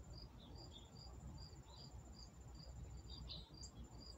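Faint insect chorus: a steady high trill with short chirps repeating about twice a second, over a faint low rumble.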